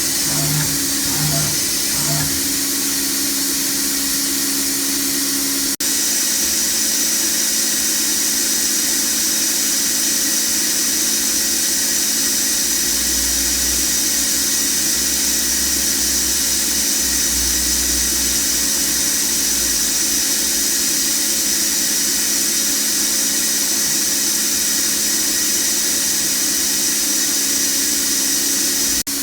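FANUC Robodrill α-T21iFLa vertical machining center running, its spindle giving a steady high whine over the machine's hum. The sound cuts out for an instant about six seconds in, then carries on unchanged.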